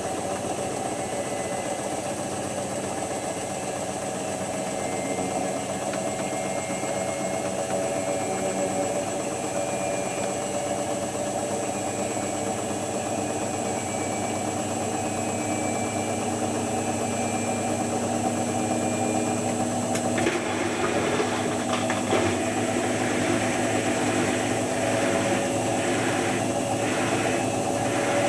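Hotpoint HF8B593 washing machine running through its synthetics rinse-and-spin: a steady motor hum that slowly grows louder. About twenty seconds in, a rushing noise joins, pulsing about once a second.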